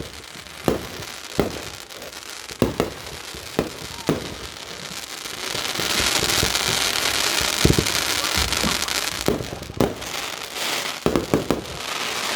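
Fireworks going off: a string of sharp bangs a second or so apart, with a stretch of dense crackling in the middle and a quick cluster of bangs near the end.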